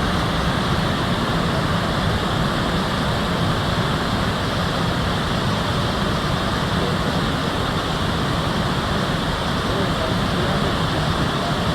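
Victoria Falls' water pouring down, heard as a steady, loud, even rush of noise with no breaks.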